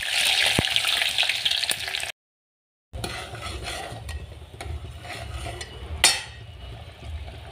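Food sizzling as it fries in an aluminium pot while a steel ladle stirs and scrapes it. The sizzle is loud for about two seconds, cuts out completely for a moment, then comes back quieter, with scrapes and a sharp knock of the ladle about six seconds in.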